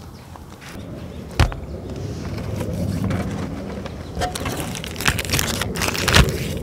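Handling sounds: a sharp knock about a second and a half in, then rustling and crinkling as an individually wrapped wet-wipe packet is handled and torn open, with a couple of sharper snaps near the end.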